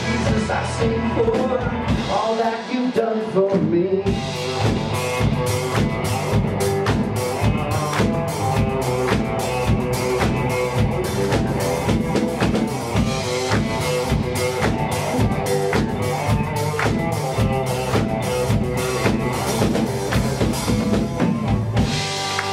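Live band playing a contemporary worship song on drum kit and guitars. About four seconds in, the low end fills out and a busy, regular drum beat drives the full band.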